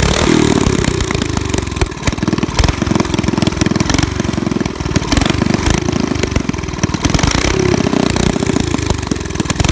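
Small pocket bike engine running, revved up and back down a couple of times between stretches of steady running.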